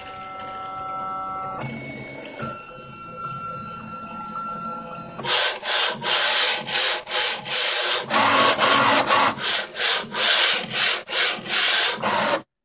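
Homemade 3D printer's stepper-driven gantry under test. At first the steppers give steady whining tones as the carriage moves. From about five seconds in comes a loud rhythmic rasping, about two to three strokes a second, as the acrylic carriage is shuttled fast back and forth along its steel rods. It stops abruptly near the end.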